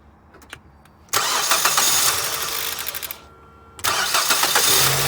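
Mazda 3's 2.0-litre four-cylinder petrol engine being started about a second in. It cuts out after about two seconds, is started again and settles into running. The vacuum hose to the intake-manifold flap solenoids is clamped shut, so the knock from the flaps in the plastic intake manifold, which sounds like a worn rod bearing, is absent.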